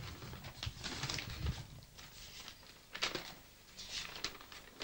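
Pages of a paper notebook being turned by hand: soft paper rustles in several short flurries.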